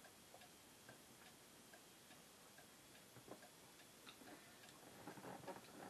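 Near silence with a clock ticking faintly, about two ticks a second. There are a few faint mouth sounds near the end from tasting a sip of beer.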